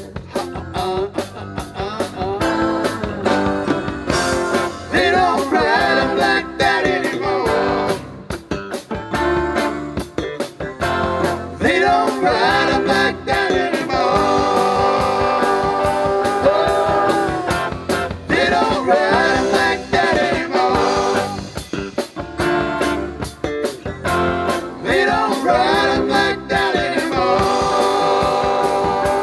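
A live blues-rock band playing an instrumental passage between verses: electric bass and keyboard over a steady drum beat, with a bending lead melody on top.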